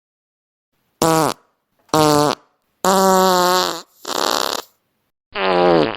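Fart sound effects: five separate farts starting about a second in. The first two are short and fall in pitch, the third is longer and steady, the fourth is rougher, and the last, near the end, is short and falls in pitch.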